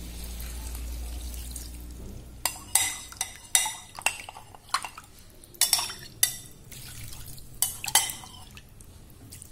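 Metal slotted spatula clinking and scraping against a glass bowl, stirring a flour-and-water slurry that is being poured into the wok a little at a time so it does not form lumps. The sharp clinks come irregularly, starting about two seconds in.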